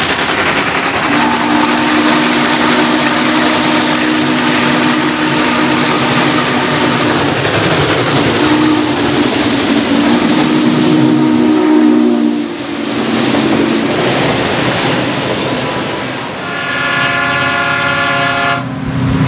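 Norfolk & Western J-class No. 611 streamlined steam locomotive running toward the camera with its train, its two-note steam whistle sounding in four blasts, long, short, long, short, over the train's steady running noise. Near the end, an Alaska Railroad diesel locomotive's multi-note air horn sounds for about two seconds.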